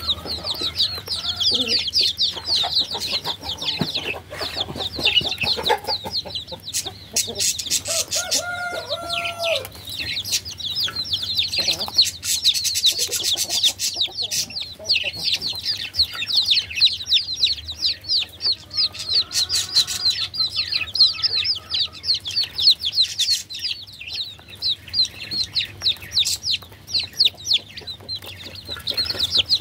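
Baby chicks peeping without a break, many short, high-pitched, downward-sliding peeps overlapping at once. A lower-pitched call stands out about a third of the way in.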